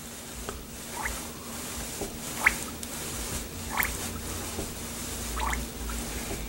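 Air bubbles coming up through DOT3 brake fluid in the reservoirs of a dual-bowl master cylinder as it is bench bled, a short rising bloop every second or so. The bubbles are trapped air being purged from the cylinder.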